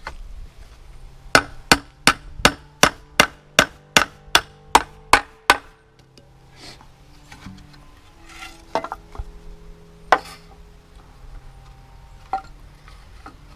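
Hammer striking wood in a quick run of about a dozen even blows, about three a second, then a few scattered single knocks.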